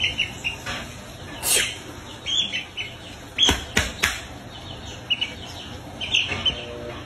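A chick peeping: groups of short, high, falling chirps repeated every second or two, with a few sharp knocks in the middle.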